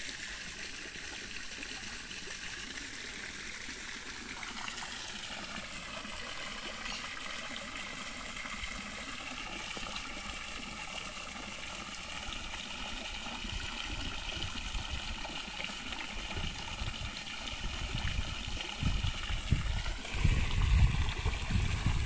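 Water spouting from a pipe and splashing into a small pond: a steady trickling splash. Irregular low rumbles join in over the last few seconds.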